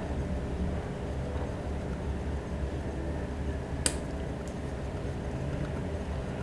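Quiet room with a steady low hum, broken once by a sharp click about four seconds in and a fainter tick just after.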